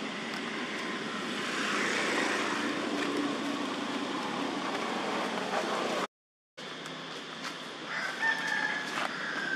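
Steady background noise, then one drawn-out, slightly falling crow of a rooster about two seconds before the end.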